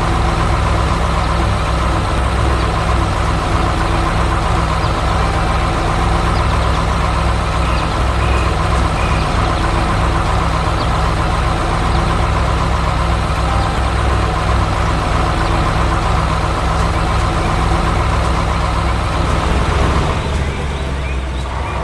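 Heavy construction vehicle's engine running steadily with an even low drone, easing off about two seconds before the end.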